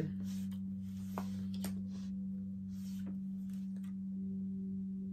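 A steady low humming tone, with a few faint clicks; a second, higher steady tone joins about four seconds in.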